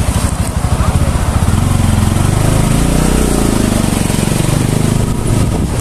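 Small motor scooter engine running at low riding speed, its note swelling up and falling back about halfway through, with wind rushing on the microphone.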